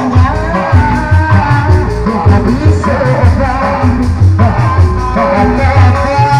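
Loud Sundanese jaipong music for sisingaan, with drums keeping a steady, pulsing beat under a melody that slides in pitch, and a voice singing.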